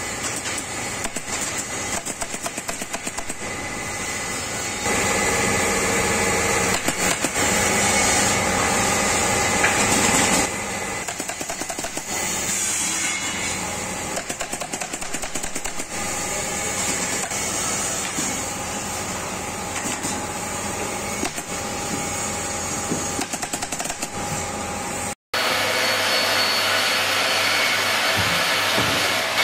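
Pneumatic staple gun firing staples in quick succession into a wooden sofa frame, a rapid string of sharp clicks over a steady hiss. Near the end the clicking stops and only a steady workshop noise remains.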